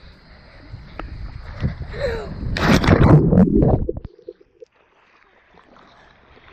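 Water splashing and rushing over an action camera as it plunges into a shallow creek, loud for about a second and a half. The sound then turns muffled and much quieter underwater.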